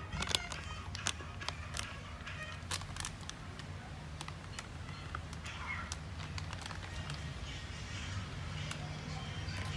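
Crinkling and crackling of a plastic flour-mix packet being handled and emptied into a plastic bowl, with sharp crackles mostly in the first three seconds, over a steady low hum.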